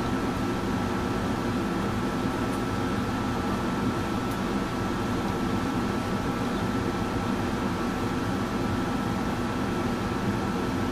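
Steady mechanical hum and hiss of aquarium equipment, such as a filter or air pump, running continuously, with a thin high whine above it.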